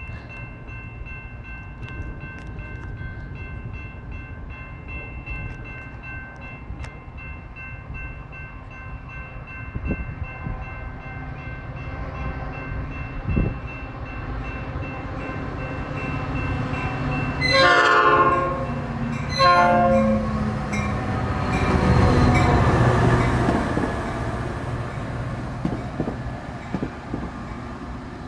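A Metra commuter train approaches: a level-crossing bell rings steadily, then the diesel locomotive's horn sounds two blasts past the middle. The train passes close by with a loud rumble of wheels on rail, easing off near the end.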